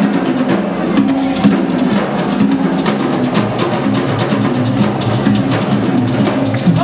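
Drums played in a fast, dense, steady rhythm, with low drum tones under many quick strikes.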